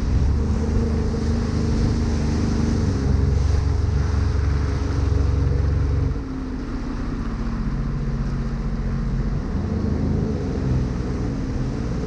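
Sea-Doo Wake Pro 230 personal watercraft running at speed, its three-cylinder Rotax engine droning steadily over hissing water spray and wind on the microphone. About halfway through, the throttle eases off and the engine note drops lower and quieter.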